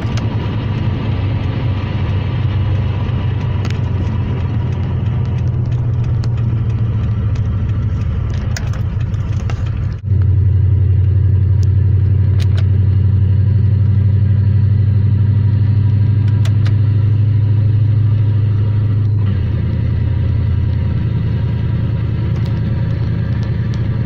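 A vehicle engine idling with a steady low rumble and a few light clicks. The sound breaks off abruptly about ten seconds in and resumes slightly louder and steadier.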